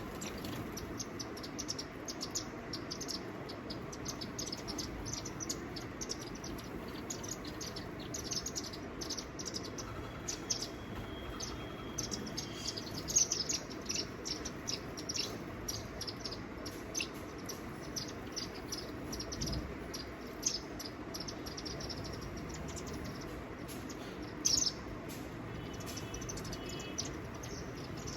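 Small birds chirping with many short, high, sharp notes, and a thin held whistle about ten seconds in.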